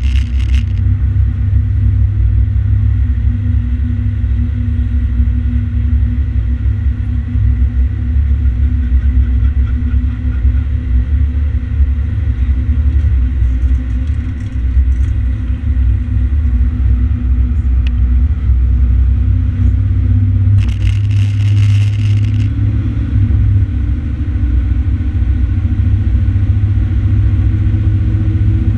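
Fire engine's diesel running at highway speed with a heavy, steady low rumble of engine and road noise; the engine note rises slightly near the end. A brief hiss cuts in about three-quarters of the way through.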